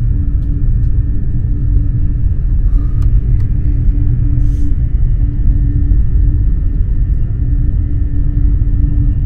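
Steady low rumble of a Eurostar high-speed train running, with a constant hum and a couple of faint clicks near the middle.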